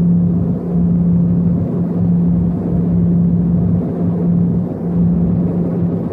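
A small high-wing turboprop plane's engines droning, heard inside the cabin while the plane rolls along the runway: a loud, steady low hum over rumble that wavers about once a second.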